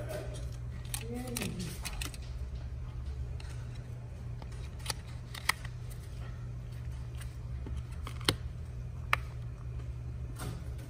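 Small plastic clicks and taps from an Amazon Fire TV remote's plastic shell being handled and fitted back together, a few sharp clicks scattered through, over a steady low hum.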